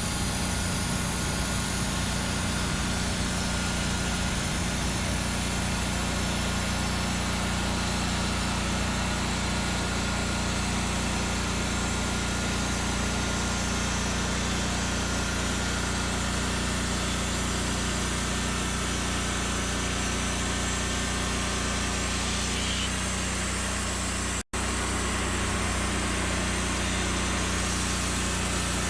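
Small gasoline engine of a portable bandsaw mill running steadily at a constant speed, with a momentary dropout about 24 seconds in.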